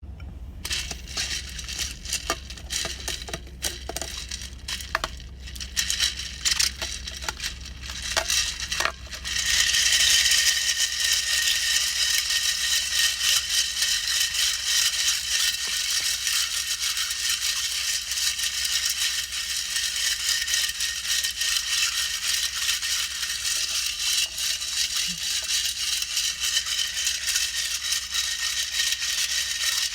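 Ice being crunched close to the microphone: separate sharp crunches at first, then from about nine seconds in a dense, steady crackling crunch that goes on without a break.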